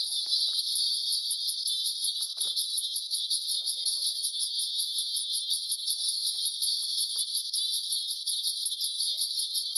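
Shrill, steady high-pitched chirring made of rapid pulses, with the low and middle range filtered away: the cartoon intro's soundtrack heavily processed with audio effects.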